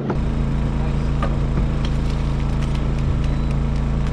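A boat-mounted engine running steadily with a constant low drone and hum, with a few light clicks over it.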